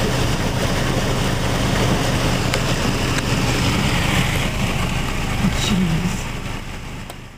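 Hail and rain pelting a car, heard from inside as a dense, steady rush with a few sharper ticks of hailstones, over a low steady hum. The rush thins out in the last second or so.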